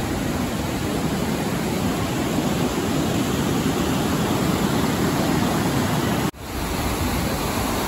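Steady rush of whitewater rapids, with a sudden brief dropout about six seconds in.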